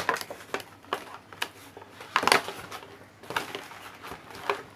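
Clear plastic blister packaging crinkling and crackling as hands grip and pull at it, in irregular sharp crackles, loudest a little after two seconds in.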